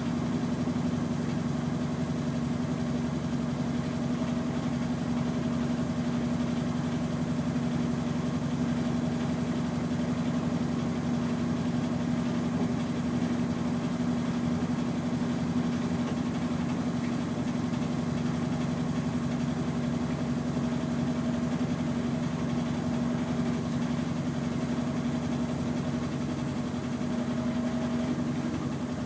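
Consul CWH15 washing machine in its spin cycle: a steady motor hum with a low, even drone.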